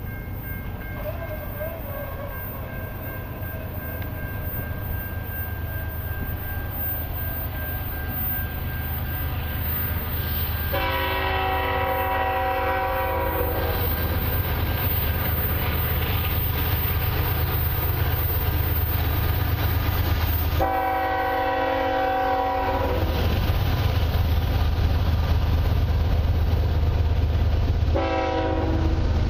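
Air horn of an approaching CN freight train's lead diesel locomotive sounding for a grade crossing: a long blast about a third of the way in, another about two-thirds in, and a third starting near the end. Under it the low rumble of the locomotives' diesel engines and the train grows steadily louder as it nears.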